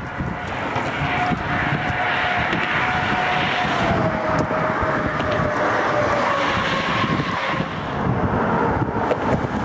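Wind rushing over the microphone of a camera riding along on a bicycle, with a faint steady hum in the background that slowly drops in pitch over a few seconds.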